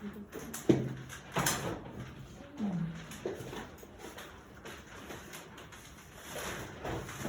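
Gift wrapping paper rustling and crinkling in irregular bursts as a present is unwrapped, with a few brief low voices.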